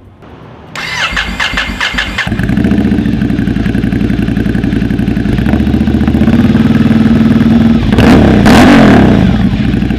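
Ducati Scrambler's air-cooled V-twin turned over by its starter for about a second and a half, catching a little over two seconds in and settling into a loud idle through an Arrow slip-on exhaust with no baffle and the catalytic converter removed. Near the end the throttle is blipped once, the pitch rising and falling.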